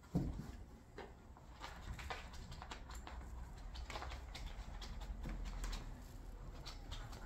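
A cat scuffling on a hardwood floor while it grapples with a catnip toy: a thump near the start, then a steady run of light scratches, taps and rustles.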